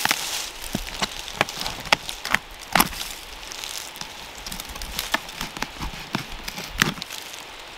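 Knife cutting and prying into a rotting silver birch log, with irregular sharp cracks and crackles of bark and wood breaking away. The loudest snaps come about three seconds in and near the end.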